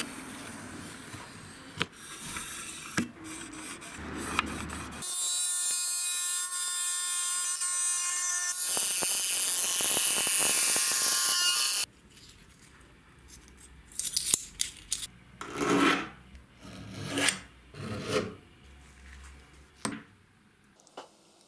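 Angle grinder with a thin cut-off disc cutting through aluminium plate: a loud, steady, high-pitched screech lasting about seven seconds that stops suddenly. Before it there is faint rubbing and tapping, and after it a series of short scraping strokes on the metal.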